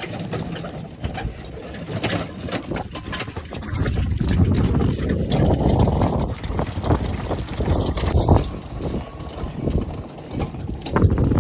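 Wind buffeting the microphone in gusts, a rumbling roar that swells about four seconds in and eases near the end, with a few scattered knocks.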